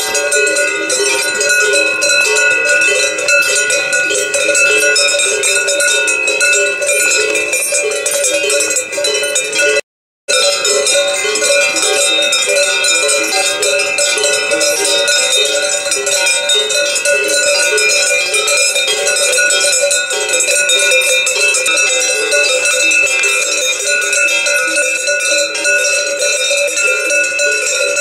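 Many cowbells on a walking herd of cows ringing together in a continuous jangle of different pitches. The sound breaks off for a moment about ten seconds in.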